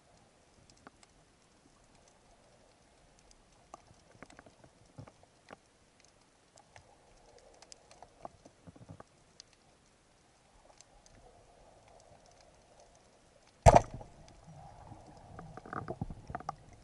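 Underwater, faint scattered clicks and knocks, then about 14 s in one sharp, loud crack of a speargun firing. A couple of seconds of rattling knocks follow as the spear strikes among the rocks.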